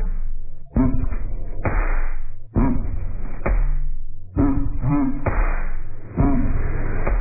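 Background music, heavy in the bass, broken by short abrupt pauses about every two seconds.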